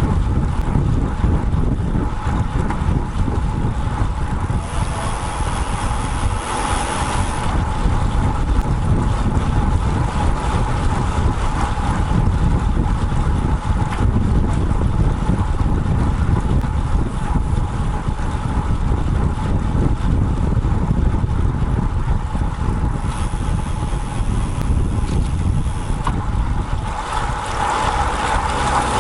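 Wind buffeting the microphone of a bicycle-mounted action camera while riding, a steady rumbling noise. A brighter hiss swells twice, about five to seven seconds in and again near the end.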